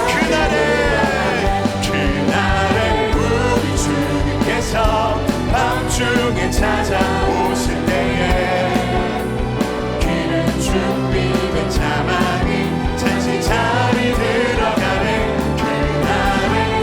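A live worship band and singers performing a contemporary praise song, with drums keeping a steady beat under the voices.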